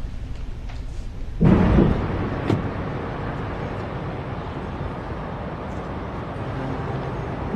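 A low rumble, then about a second and a half in a steady outdoor rush of wind-like noise starts suddenly and holds, with one faint tick shortly after.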